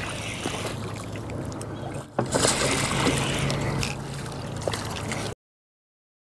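A hooked crappie splashing and thrashing at the water's surface as it is reeled up alongside the boat, loudest for a couple of seconds from about two seconds in, over a steady low hum. The sound cuts off suddenly about five seconds in.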